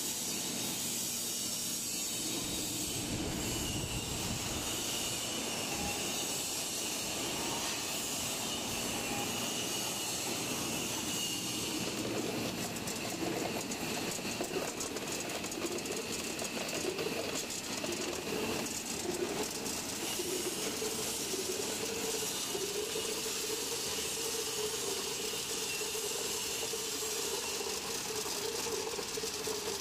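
Tube ice machine running under test: the steady mechanical hum and hiss of its Bitzer piston compressor and air-cooled condenser fans. Rattling and clatter build through the second half, with ice tubes dropping from the chute into a plastic basin near the end.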